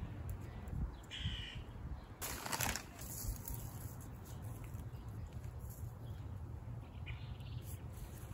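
Wind buffeting the microphone with a steady low rumble, a short rustling gust about two seconds in, and two brief bird calls, one about a second in and one near the end.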